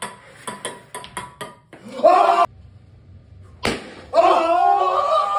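A run of light, sharp knocks and clatters of plastic party cups, a brief shout, then a single sharp smack about three and a half seconds in, followed by loud wordless shouting from young men.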